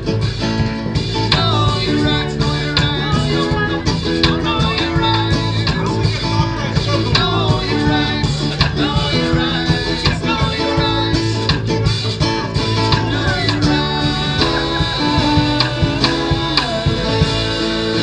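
Live acoustic trio playing: acoustic guitar over a plucked upright double bass and a small drum kit keeping a steady beat.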